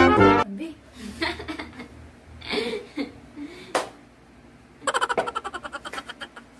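A brass intro tune cuts off, then two women laugh and giggle, with a single sharp click about four seconds in. Near the end comes a quick burst of rapid hand clapping lasting about a second and a half.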